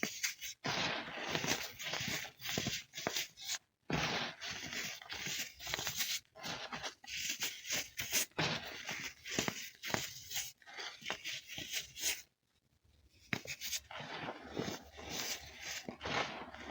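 Crispy baking soda being broken and crumbled: a dense run of crisp crunches and crackles, broken by a brief pause about four seconds in and a longer one around twelve seconds.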